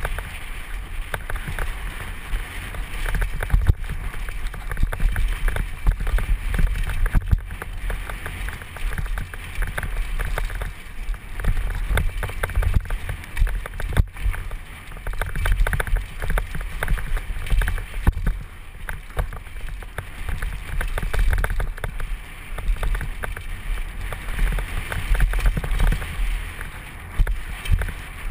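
Wind buffeting the microphone of a helmet-mounted camera on a downhill mountain bike riding a dirt trail. Under it runs a deep rumble, broken by irregular knocks and rattles from the bike over the rough ground.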